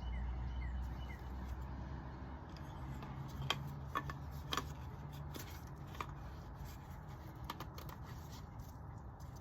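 Scattered light clicks and taps of small parts being handled as the new O-rings and the oil filter cartridge are fitted back into the filter housing, over a low steady hum.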